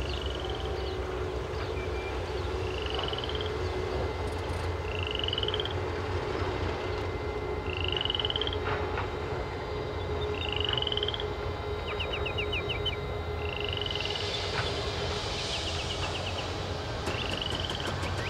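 Animal calls outdoors: a short rising whistle-like note repeated about every two and a half seconds, with two brief rapid rattles of ticks in the second half, over a steady low rumble of distant motorway traffic.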